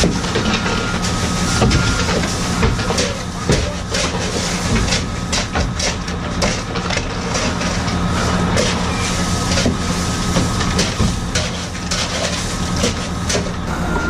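A shovel scraping and scooping crushed ice across a boat's deck in quick, irregular scrapes and crunches, over a steady engine hum.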